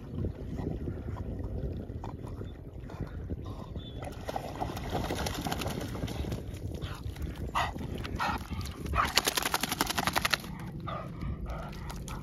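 Springer spaniel splashing out of shallow river water onto a concrete slipway, over a low rumble of wind on the microphone. About nine seconds in comes a loud, rapid rattling burst lasting about a second and a half.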